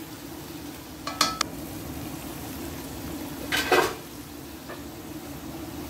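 Minced meat and potato chunks sizzling in a metal kadai while a spoon stirs and scrapes through them, over a steady low hum. The spoon clinks against the pan with a short ring about a second in, and louder just past halfway.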